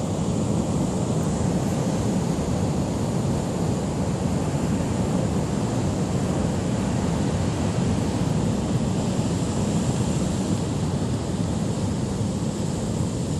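Heavy storm surf breaking on a rocky shore, a steady low rumble of waves with no single crash standing out, mixed with wind noise on the microphone.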